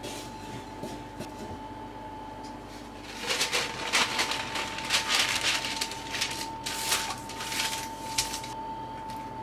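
Sheet of baking paper rustling and crinkling as it is handled and laid flat over a baking tray, in a run of crackly bursts from about three seconds in until near the end.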